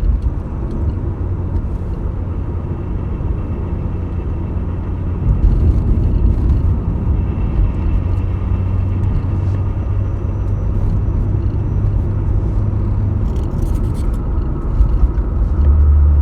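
Toyota Crown Athlete V's 1JZ-GTE turbo straight-six running, a steady low drone that shifts in pitch and grows louder near the end.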